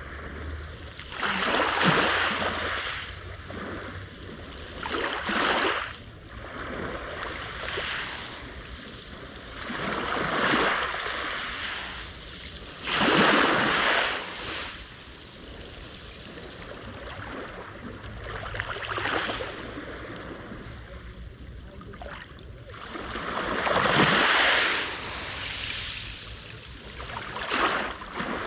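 Black Sea waves breaking on the shore, the surf swelling and washing back about every three to five seconds.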